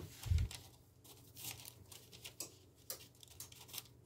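Faint rustling and small clicks of hands handling samosa pastry, with a short soft thump near the start.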